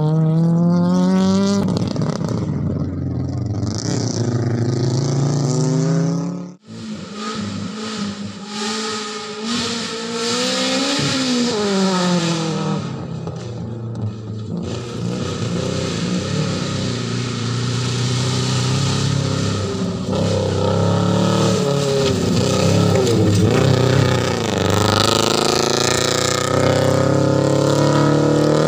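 Rally car engines revving hard on a gravel stage, the pitch climbing and dropping again and again with each gear change. The sound cuts off abruptly about six and a half seconds in and picks up with another car at full throttle.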